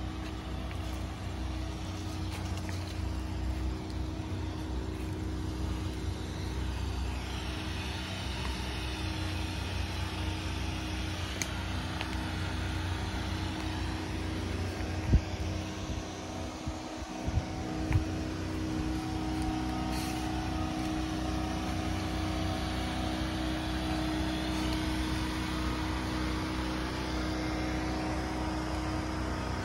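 Steady low mechanical hum of constant pitch, with two sharp knocks a little past halfway.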